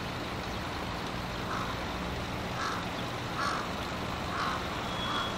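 A bird calling over and over, about five short calls roughly a second apart, over a steady low hum.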